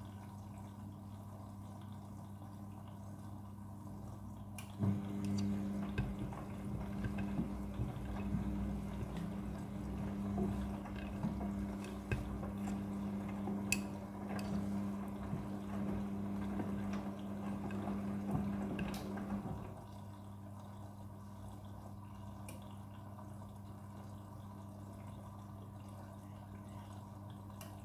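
Midea front-loading washing machine in its wash cycle: the drum motor hums and the wash water sloshes and drips with the load for about fifteen seconds, starting about five seconds in. It then stops, leaving a quieter steady hum through the pause.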